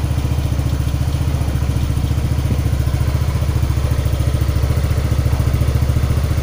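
Yamaha NMAX 155 scooter's single-cylinder four-stroke engine idling steadily with an even pulse. It is running again after its weak, oil-wet spark plug was replaced.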